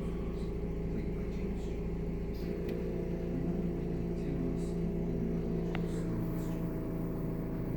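A steady machine hum with several constant tones, running evenly throughout.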